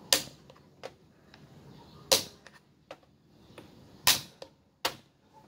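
Plastic dama (checkers) pieces clacked down on the board: three sharp knocks about two seconds apart, another just before the end, and lighter clicks between, as pieces are moved and captured in a run of exchanges.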